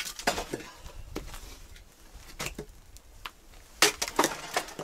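Campfire in a winter forest burning and being tended: a scatter of sharp cracks and knocks from the fire's rotten, punky wood, loudest at the start and again about four seconds in.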